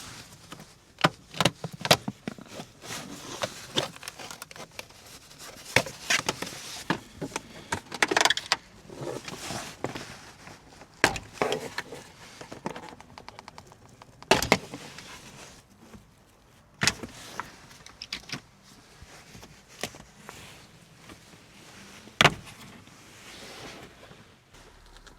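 Irregular sharp clicks and knocks with rustling in between: hand work on a car's stripped interior, with plastic trim, clips and tools being handled.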